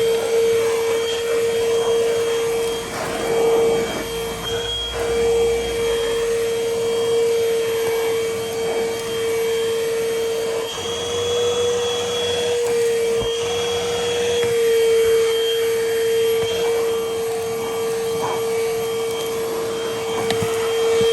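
DN DENNOV cordless handheld vacuum's 100 W motor running steadily with a constant whine and rush of air; the pitch lifts slightly for a few seconds about halfway through.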